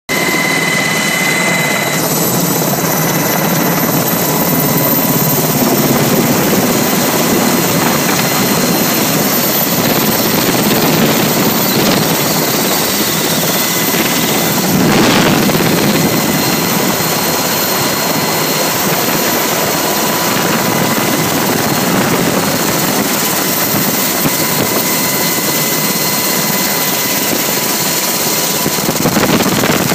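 UH-60 Black Hawk helicopter lifting off and climbing, heard from on board: a loud, steady rush of rotor and twin turboshaft engines with a constant high whine.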